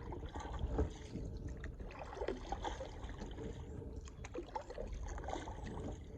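Water lapping, with a few faint short clicks and knocks.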